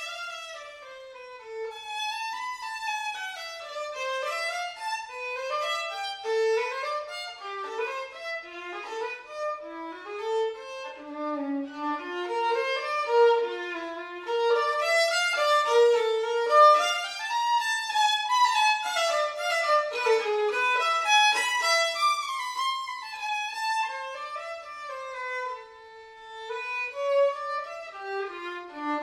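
Violin playing a quick-moving melody, the notes stepping and leaping up and down.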